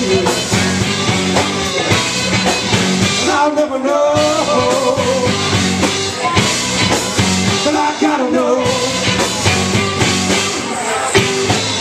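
Live rock band of drums, bass, electric guitars and saxophone playing an instrumental passage of the song at full volume, with a steady beat.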